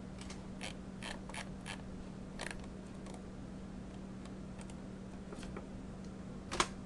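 Scattered clicks of a computer mouse and keyboard, about eight in the first three seconds, then a few more, the loudest one near the end. A steady low hum runs underneath.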